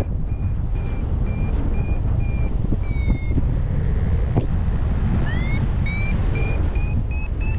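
Flymaster variometer beeping about twice a second at a steady pitch, under heavy wind rush on the microphone. The beeps stop for about two seconds, then come back about five seconds in with a sharp upward slide and keep rising slowly in pitch: the vario's climb tone, signalling lift that is getting stronger.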